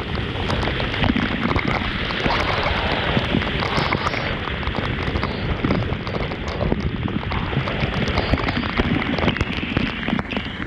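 Waterfall: falling water rushing and splashing in a steady loud hiss, full of small splash ticks.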